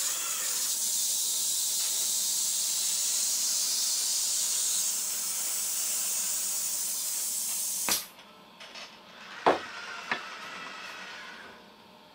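Steady loud air hiss from the Baxter robot's pneumatic gripper while it holds the wooden panel, cutting off sharply with a click about eight seconds in as the gripper lets go. Then a couple of knocks of wood as the panel is handled.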